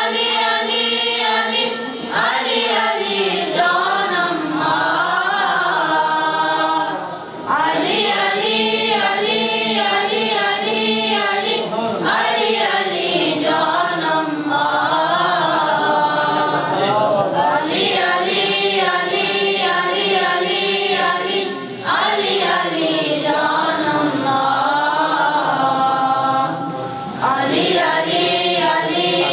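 A boys' choir singing a devotional song (manqabat) in praise of Imam Ali, unaccompanied, in long phrases broken by brief pauses.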